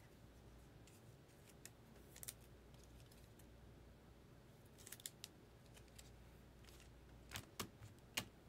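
Faint, scattered clicks and light ticks of trading cards being handled on a table, with a cluster about five seconds in and a few sharper clicks near the end.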